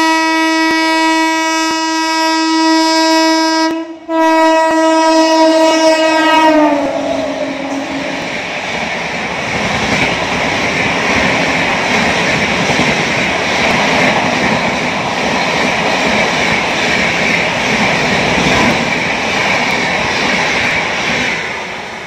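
WAP-7 electric locomotive sounding its horn in two long blasts, with a short break about 4 s in; the pitch drops as the locomotive passes at speed. The Rajdhani Express coaches follow, passing with a steady rush of wheel-on-rail noise that falls away near the end.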